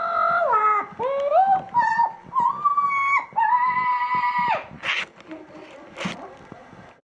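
Double yellow-headed Amazon parrot calling without words: a run of held, pitched whistle-like notes that step and slide up and down, then two short harsh squawks.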